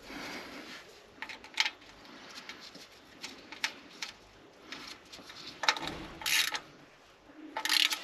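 Scattered small clicks, taps and rustles of gloved hands refitting an old oil level sensor into the engine's oil pan and handling its plug connector, with a short cluster of clicks about six seconds in and another near the end.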